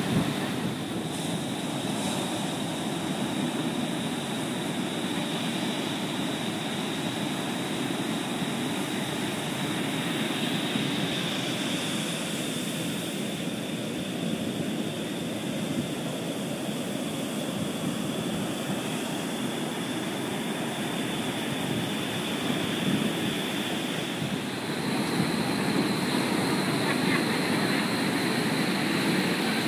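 Surf breaking on a sandy beach: a continuous, even rush of waves, slightly louder near the end.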